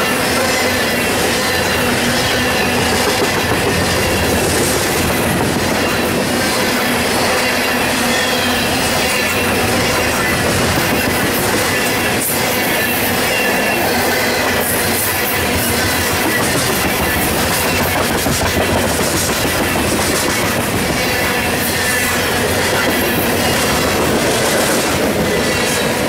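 Steel wheels of a freight train's coal cars rolling past close by: a steady rumble with repeated clicks as the wheels cross rail joints, and a thin squeal from the wheels.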